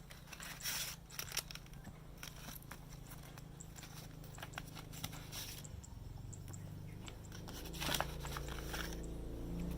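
Irregular small clicks, crackles and scrapes from handling the laser-cut stand pieces, over a low steady hum, with a louder crackling burst near the end.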